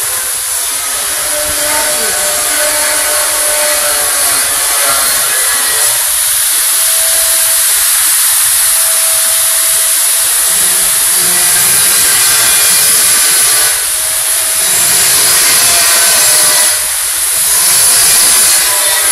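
Power tool running steadily, with a strong high hiss, easing off briefly twice near the end.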